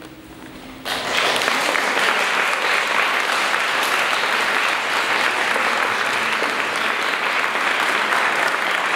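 The last notes of a koto ensemble fade out, then the audience breaks into applause about a second in and keeps clapping steadily.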